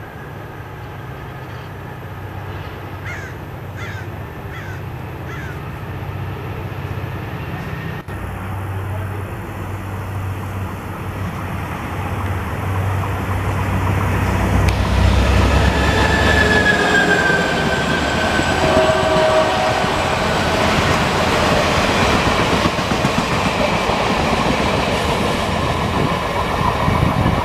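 Caltrain diesel commuter train approaching with a low locomotive engine drone that grows louder, then passing close by with its wheels rumbling and clattering on the rails. A brief high wheel squeal comes about two-thirds of the way through.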